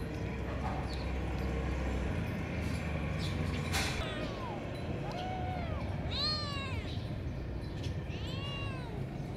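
Kittens meowing: several short, high-pitched mews that rise and fall, starting about four seconds in, the loudest near the middle. A sharp click comes just before the first mew.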